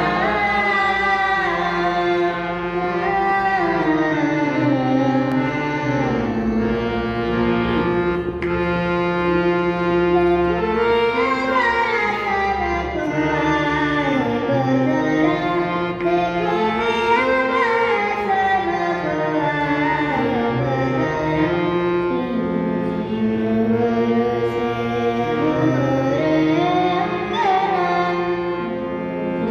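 Male vocalist singing raag Des in Hindustani classical style, with long sliding, ornamented phrases, over a harmonium accompaniment.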